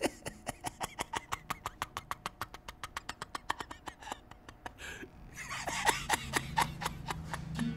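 A man laughing in rapid, breathy pulses, about six a second, which grow louder near the end.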